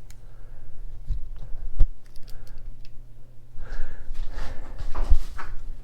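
Workshop handling noises over a steady low hum: a few dull knocks, about one and two seconds in and again near the end, and a stretch of rustling and scraping as a small threaded metal part is handled and wrapped in lead sheet.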